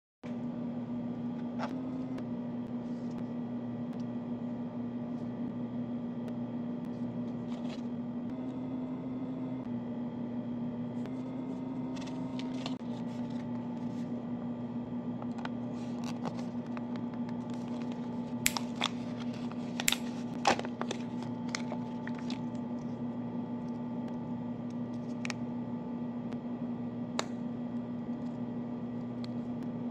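Plastic wrapper and a folding plastic spork handled by hand: scattered crinkles and clicks, with a few sharp clicks about two-thirds of the way through. A steady low hum runs underneath.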